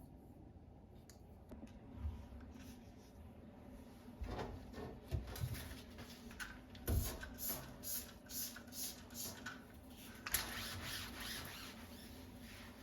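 Household handling sounds: a few soft knocks and thumps, a run of short regular rubbing strokes at about two a second in the middle, and a stretch of rustling near the end.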